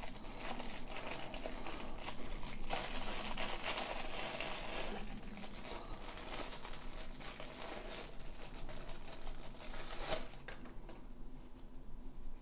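Thin plastic crinkling and rustling, with small clicks, as protective pieces are peeled off a new computer mouse. It dies down about ten and a half seconds in.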